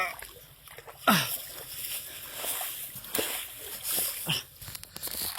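Water splashing and sloshing in irregular bursts, the loudest about a second in.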